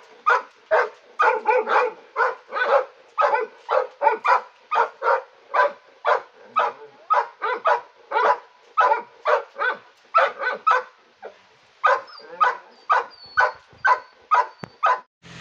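Adult yellow Labrador retriever barking over and over, about three loud barks a second, with a brief pause about eleven seconds in before the barking resumes.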